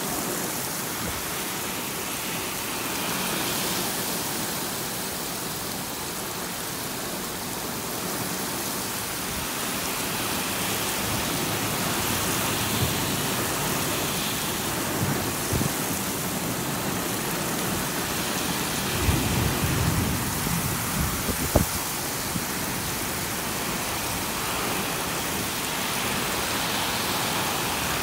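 Heavy rain pouring steadily in a torrential downpour, an even hiss. About two-thirds of the way through, a few low rumbling thumps and one sharp knock rise above it.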